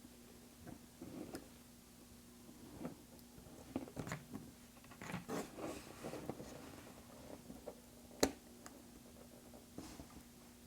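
Small clicks and taps of hand tools and tiny parts being handled during iPhone X disassembly, scattered and irregular, with one sharper click about eight seconds in. A faint steady hum runs underneath.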